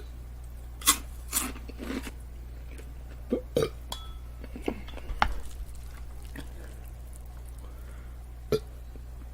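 A woman eating: a scatter of short wet mouth sounds from chewing and lip smacks, about eight in all, over a steady low hum.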